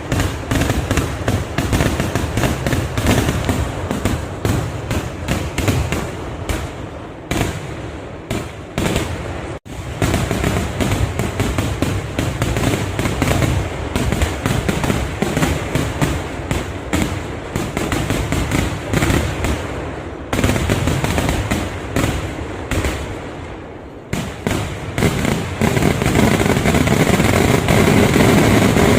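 Vedikkettu fireworks barrage: a dense, unbroken stream of rapid cracking explosions, with a brief gap just before ten seconds in.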